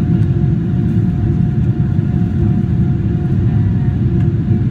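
Steady loud rumble of a Boeing 777-300ER's GE90-115B engines and airflow, heard inside the passenger cabin, with a faint steady whine above it.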